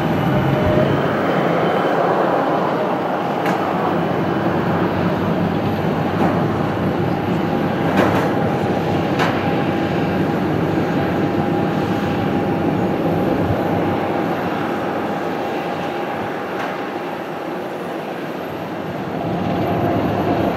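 Airbus A321's twin CFM56 turbofan engines running at taxi power as the airliner rolls along: a steady rushing hum with a faint steady whine. It dips slightly a little before the end, then rises again.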